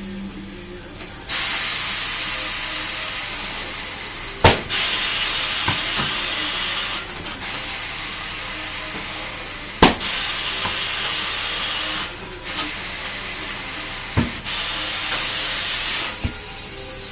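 Compressed air hissing steadily in a tyre shop's work on a wheel, starting a second or so in and dipping briefly a few times, with three sharp clicks spaced several seconds apart.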